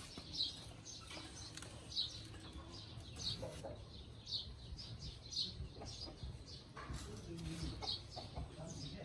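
Small birds chirping over and over in short high notes, with a chicken clucking a few times.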